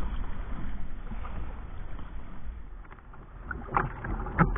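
Choppy sea water sloshing against a kayak's hull, with wind rumbling on the bow-mounted camera's microphone; a few sharper, louder splashes come near the end.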